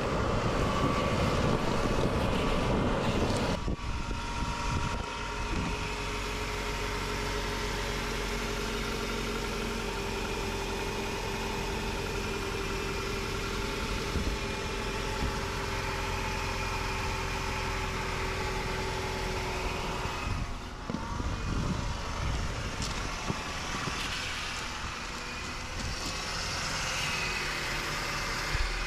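A 2008 Toyota Camry CE's four-cylinder engine idling steadily, heard from beneath the front of the car. It is louder for the first few seconds, then settles.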